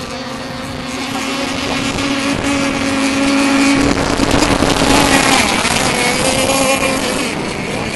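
Engines of radio-controlled racing boats running at speed across the water, a steady high buzz that swells as one boat passes close and then fades a little.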